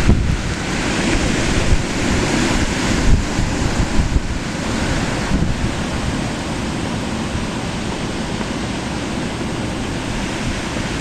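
Blizzard wind blowing hard across the microphone, gusting strongly for the first few seconds and then settling into a steadier rush.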